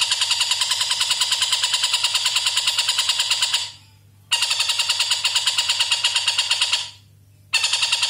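Oriental dollarbird (tengkek buto) giving its long, rapid, harsh cackling call at about seven notes a second. It breaks off briefly twice and starts again.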